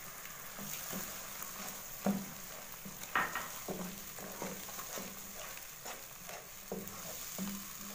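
Onion and spice masala with freshly added tomato paste sizzling in a nonstick wok while a wooden spatula stirs it, with irregular knocks and scrapes of the spatula against the pan.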